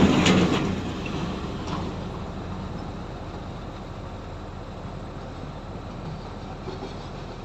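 Excavator's diesel engine running steadily, with a loud burst of noise in the first second before it settles into an even hum.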